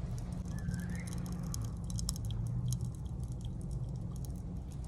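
Popping candy in an Oreo's cream filling crackling as it is eaten: an irregular scatter of tiny sharp pops and snaps.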